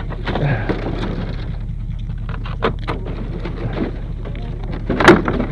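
Heavy hay baler being moved on a trailer by a draft-horse team: irregular clattering and knocks, with a sharp loud knock about five seconds in, over a steady low hum.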